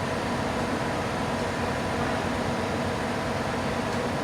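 Steady mechanical hum and hiss with no distinct knocks or changes.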